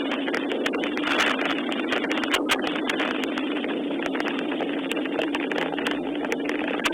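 Steady rain falling: a constant hiss with many sharp ticks of individual drops hitting nearby surfaces.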